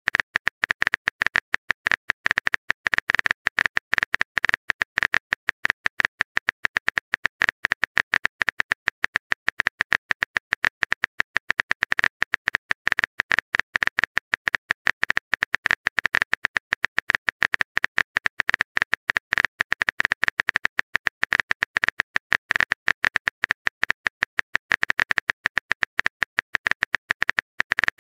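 Fast, continuous keyboard-typing clicks, one click for each letter, from a chat app's typing sound effect.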